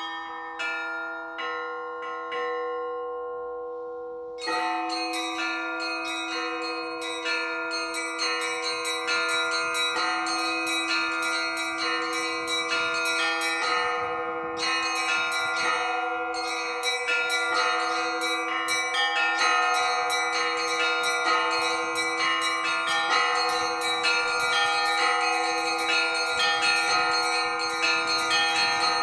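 Russian Orthodox church bells in festive ringing (zvon): small high bells struck in quick, dense patterns over the steady strokes of larger, lower bells. A few strikes die away early, then the full peal comes in about four and a half seconds in and carries on without pause.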